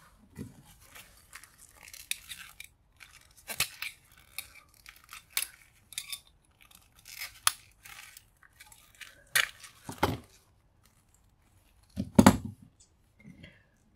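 Small metal parts of a brass gauge being taken apart by hand: scattered clicks, scrapes and rattles, with a few louder knocks in the second half.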